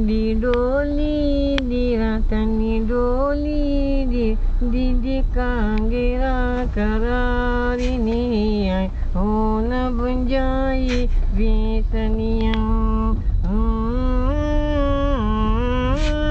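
A single voice singing a wordless melody in long held, sliding notes, phrase after phrase, over the steady low rumble of road noise inside a car cabin.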